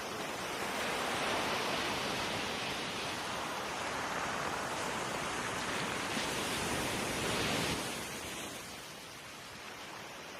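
Steady rush of seawater and waves churned up by a cruise ship under way. It eases off about eight seconds in.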